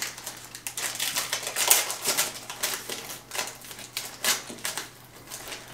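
Foil wrapper of a Panini Mosaic trading-card pack crinkling and tearing as it is ripped open by hand, a run of irregular crackles.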